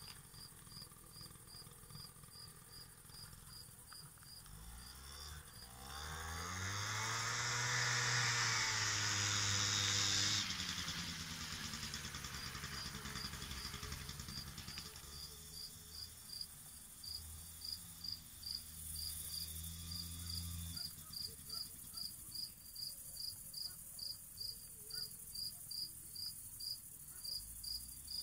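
Crickets chirping steadily, about two to three chirps a second. About five seconds in, an engine runs louder and rises then falls in pitch, then cuts off sharply about ten seconds in. A lower engine hum comes and goes later.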